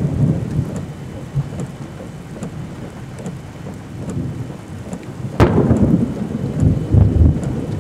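Thunderstorm wind and rain: a steady low rumble with rain noise over it, a sharp crack about five and a half seconds in, and louder rumbling after it.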